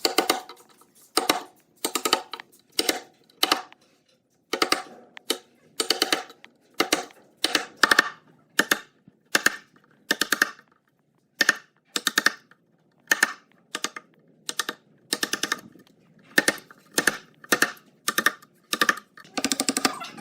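Rhythmic strokes of a hand tool working wood, about one and a half strokes a second, each stroke a short rattling train of clicks, pausing briefly twice.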